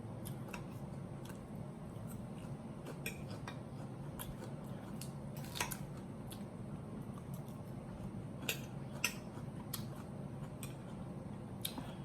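Cutlery clicking and scraping against a plate during a meal: scattered short clicks a second or two apart, the sharpest about halfway through and near the three-quarter mark, over a steady low hum.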